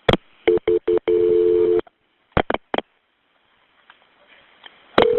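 Telephone line sounds as a 911 call is transferred to the fire department: clicks, a few short two-tone beeps running into a steady two-tone tone of under a second, three more clicks, then a single steady tone starting near the end.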